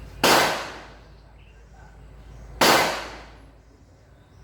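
Two gunshots about two and a half seconds apart, each a sharp crack with a short ringing tail.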